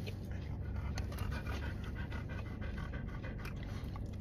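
A dog panting steadily at close range, with faint crunches of chewing.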